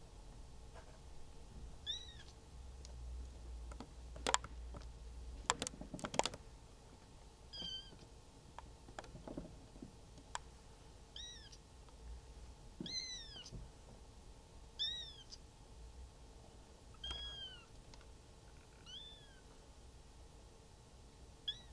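Three-week-old cream Maine Coon kitten mewing: about eight short, high-pitched cries a couple of seconds apart, each rising and then falling in pitch. A cluster of sharp clicks comes between the first and second cries.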